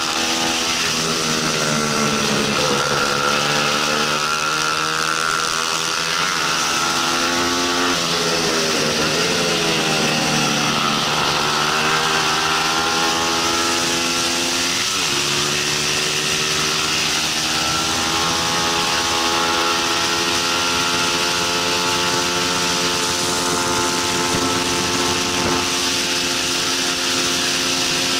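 Bajaj Pulsar 200 NS single-cylinder four-stroke engine at racing revs, heard from onboard, its pitch climbing through the gears and dropping sharply on shifts and braking for corners, with a steady rush of wind noise.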